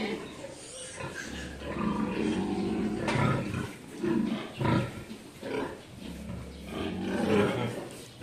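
Sows grunting in their metal stalls: an irregular run of low, rough grunts from several pigs, some louder and sharper than others.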